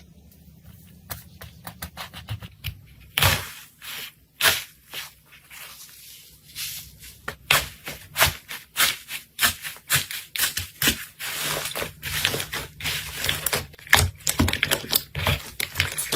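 Slime being squeezed and poked by hand, giving an irregular run of sticky clicks and crackling pops that come thicker and faster from about seven seconds in.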